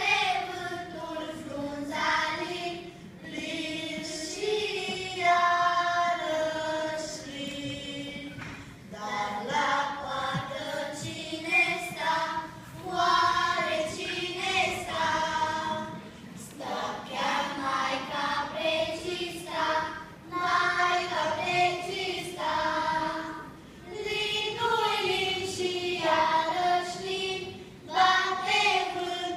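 A children's choir singing a Romanian folk song, with a woman's voice singing along on a microphone.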